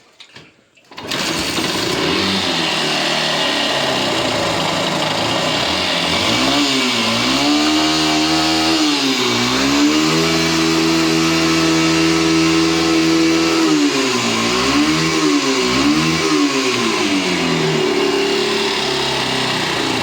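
Yamaha SZ-RR single-cylinder four-stroke motorcycle engine catching about a second in after being kick-started, then running with the throttle blipped several times and held at raised revs for a few seconds before dropping back toward idle. The bike is in for a smoking and abnormal engine-noise problem.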